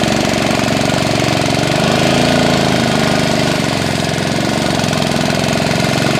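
Small fishing boat's engine running steadily under way, with a hiss of wind and water over it.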